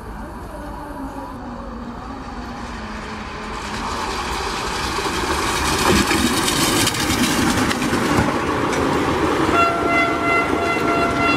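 Electric locomotive-hauled passenger train approaching and passing at speed: the rush of wheels on rail grows louder, peaking about six seconds in and staying loud as the coaches go by. Near the end a train horn sounds one steady tone.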